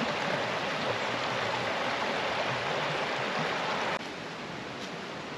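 Shallow creek rippling over rocks, a steady rush of water. About four seconds in the rush turns quieter, and near the end there is a faint crunch of a footstep in dry leaves.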